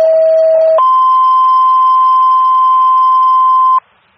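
Two-tone sequential paging tones sent over a fire-department dispatch radio channel and heard through a scanner: a lower steady tone for under a second, then a higher steady tone for about three seconds that cuts off abruptly. Such tones set off the pagers and station alerting of the unit about to be dispatched.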